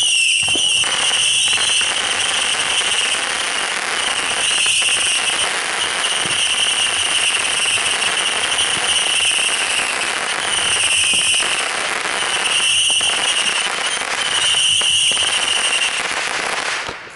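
Beehive firework: a whistling ground spinner that screams with a steady high whistle over dense crackling, then stops suddenly near the end.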